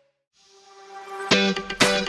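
Background music changing tracks: a brief gap, then a new guitar-led track fades in, with loud strummed chords entering just over a second in.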